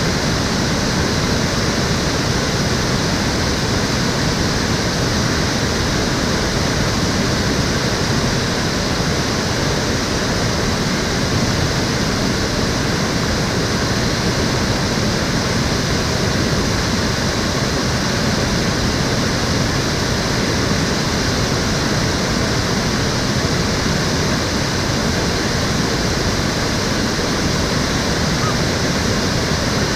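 Stream water flowing steadily: an even, continuous rushing that holds the same level throughout.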